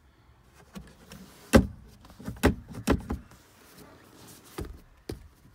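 Tan plastic center console lid (the armrest) of a Dodge Ramcharger being opened and shut by hand: a series of sharp plastic clacks and knocks, the loudest about one and a half seconds in.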